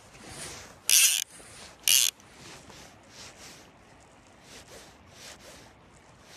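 Fly reel's clicking drag buzzing in two short, loud bursts about a second apart as line is pulled off it, followed by a run of softer rasping pulls.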